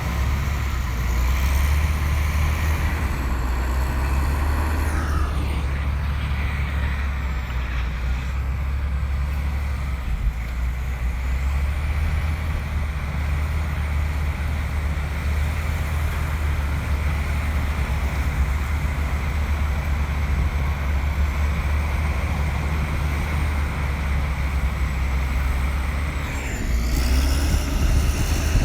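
Komatsu bulldozer's diesel engine running steadily under load with a heavy low rumble. The engine note dips and picks up again about five seconds in, and again near the end, where it gets louder.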